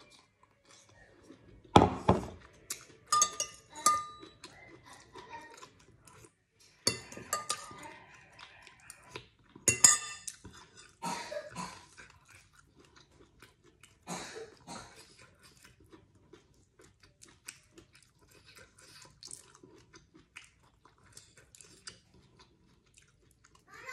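Eating at a table: chewing with the mouth, sharp knocks and clinks of bowls on the tabletop, and small crackles of hands peeling cooked shrimp. The loudest knocks come about two seconds in and again near ten seconds.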